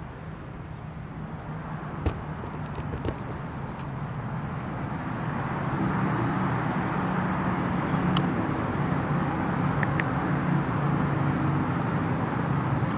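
A motor vehicle's engine running with a steady low hum, growing louder about halfway through. A few short clicks come two to three seconds in.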